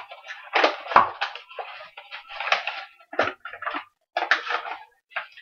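Paper flour bag being opened and handled: irregular crinkling and rustling of the stiff paper, with a sharp knock about a second in.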